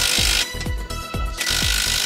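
Cordless impact wrench hammering on a track rod end nut in two bursts, one stopping about half a second in and the next starting just before the middle. The ball joint has started to spin with the nut. Background music with a steady beat plays under it.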